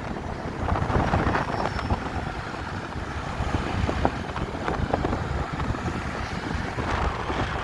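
Wind rushing over a phone camera's microphone on a moving motor scooter, a steady low rumble with traffic noise underneath.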